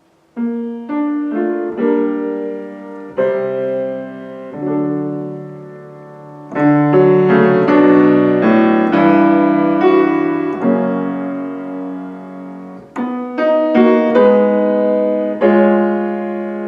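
Piano playing chords under a melody, each note struck and then fading.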